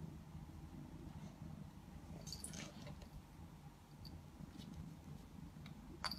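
Domestic cat purring steadily as it is stroked, with faint rustles of fur about halfway through and a sharp click near the end.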